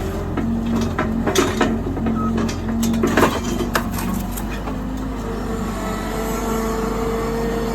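An engine running steadily, with metal clanks and knocks during the first few seconds; a steady whine comes in about five seconds in.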